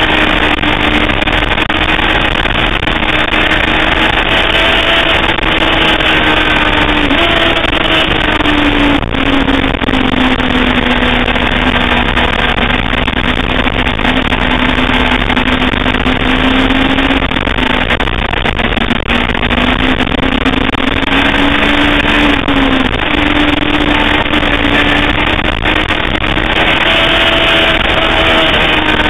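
Sportbike engine at speed on a racetrack, its note rising and falling with the throttle and stepping at gear changes, over a steady rush of noise.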